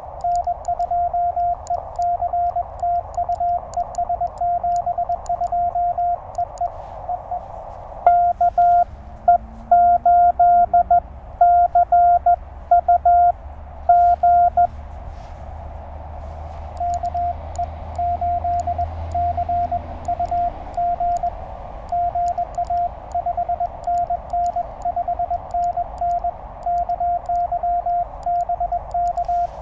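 Morse code (CW) from a Penntek TR-35 QRP transceiver: a single steady tone keyed in dots and dashes, exchanged between the operator's keyed sidetone and answering stations. It sits over the receiver's narrow band of hiss. A louder keyed passage starts about eight seconds in, and there is a short pause before another run of code.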